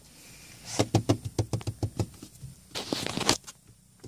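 A kitten scrambling about on a car's plastic dashboard: a quick run of light taps and scuffs from its paws and claws, about five or six a second, ending in a louder rustling scuffle near the end.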